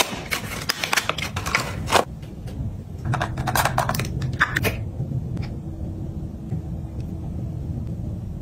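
Crisp rustling and clicking of a cardboard cosmetics box as a face-cream jar is slid out of it. About three seconds in comes a crackling scrape as the jar's lid is twisted off. After that only faint taps remain over a low steady hum.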